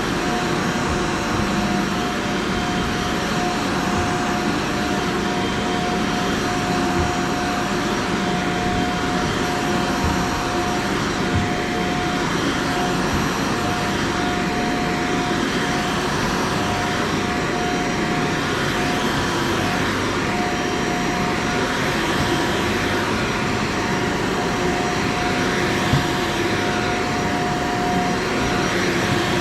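Vacuum cleaner running steadily over carpet, its motor holding a constant whine, with one brief knock near the end.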